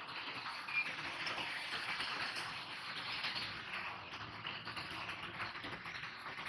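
Dense small clattering and scraping as lead plate groups are pushed into the cells of a plastic lead-acid battery case.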